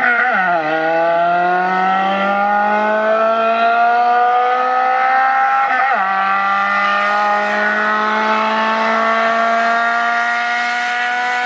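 Car engine under hard acceleration, its pitch climbing steadily and dropping briefly at gear changes, about half a second in and again around six seconds.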